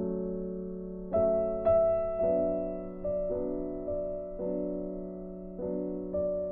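Piano music: soft held chords, a new chord or note struck every half second to a second, each fading away.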